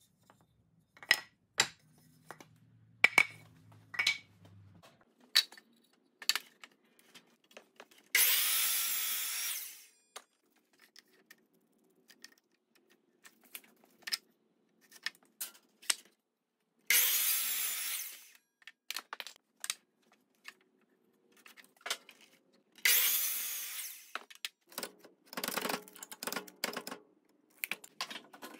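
Power saws cutting wood: three short cuts of about two seconds each, each loud at the start and fading. Around them, boards knock and clatter as they are handled, with a quick run of rattling knocks near the end.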